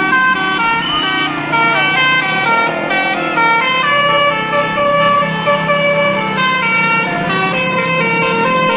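Basuri telolet air horn on the QQ Trans Winspector tour bus playing a fast tune: a continuous run of held notes that step up and down in pitch every fraction of a second.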